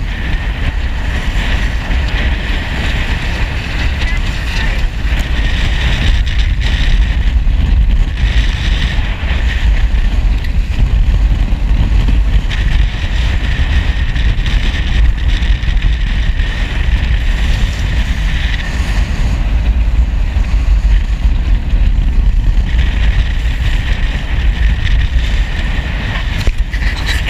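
Loud, steady wind buffeting on the microphone over the rush of water and chop along the hull of a sailboat under way.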